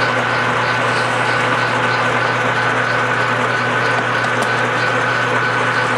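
Metal lathe running steadily under power feed, a steady high whine over a low hum, as a single-point tool takes a turning cut along a spinning steel workpiece.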